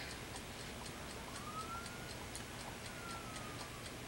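Steady faint ticking, about two ticks a second, in a quiet room. A thin tone rises in pitch partway through and falls again near the end.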